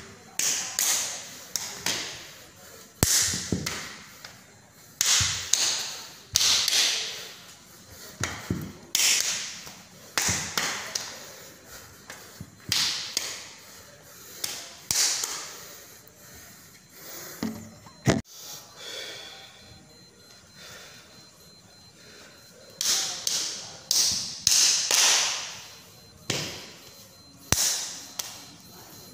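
Sounds of a man practising silat moves: irregular swishes of arms and clothing and the thuds of his steps and strikes, coming in quick bursts. There are three sharp slaps, the loudest about two-thirds of the way in, and a quieter spell just after it.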